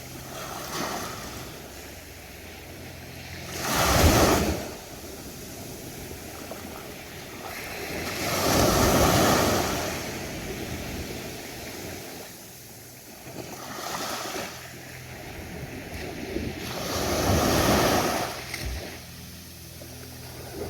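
Ocean waves breaking on a beach, each swelling in and washing back. The sharpest, loudest break comes about four seconds in, and longer surges follow around nine and eighteen seconds, with a smaller one between them.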